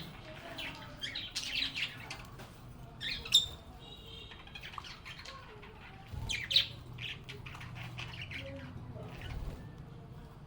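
A group of lovebirds chirping and squawking in quick, short calls, with two sharper, louder calls about three seconds and six and a half seconds in. A faint low steady hum runs underneath.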